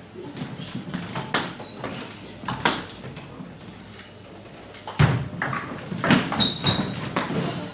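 Table tennis ball clicking off bats and the table in a doubles rally: two single clicks early on, then from about halfway a quick run of hits roughly half a second apart.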